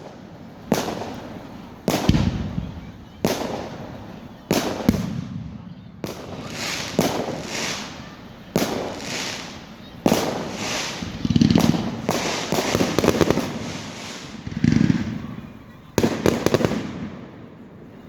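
Fireworks going off in quick succession: a string of sharp bangs, each ringing on briefly as it fades. There are bursts of rapid crackling in the middle and again near the end.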